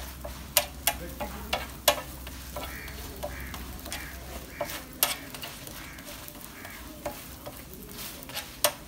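Parathas frying in oil on a large flat griddle, sizzling steadily. Metal tongs give sharp, irregular clicks and scrapes against the griddle as the breads are turned.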